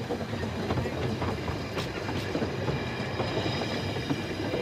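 Double Fairlie narrow-gauge steam locomotive Merddin Emrys rolling slowly past at close range, a steady rumble and clatter of its wheels and running gear on the track.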